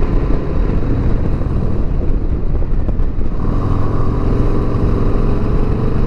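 A Harley-Davidson Sport Glide's Milwaukee-Eight V-twin engine running steadily while being ridden, heard under road and wind noise; its note changes about three seconds in.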